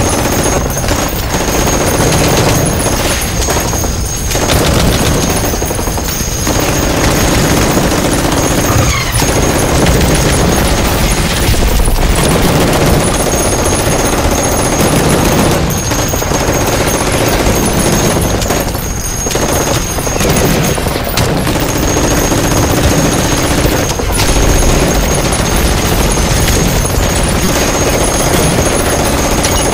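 Sustained rapid gunfire, dense and continuous, with a few brief lulls.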